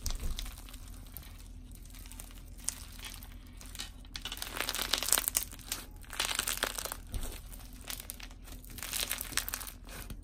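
Crunchy white-glue slushy slime packed with sprinkles being squeezed and kneaded by hand: a dense crackling of many small clicks, busiest in the middle.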